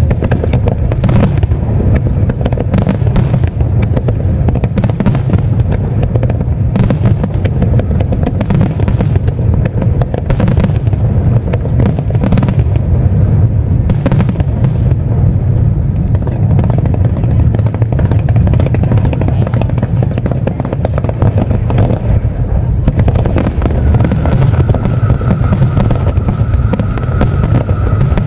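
Aerial fireworks going off in quick succession: many sharp bangs and crackles over a constant low rumble. A steady high tone comes in near the end.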